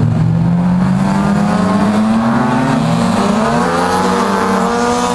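Drift car engine running hard under throttle, its pitch climbing for the first few seconds, dropping briefly about three and a half seconds in, then climbing again.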